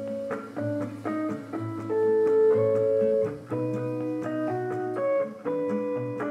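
Instrumental background music: plucked string notes over a steady bass line.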